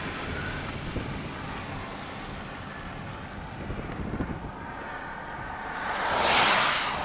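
Steady wind rumble on the microphone, then near the end a vehicle passes on the wet highway: a tyre hiss that swells and fades over about a second.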